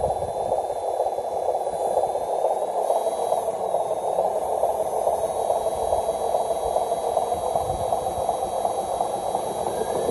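Radio-controlled model semi-truck running as it crawls over rough ground and logs. Its drive makes a steady mechanical noise that holds unchanged throughout.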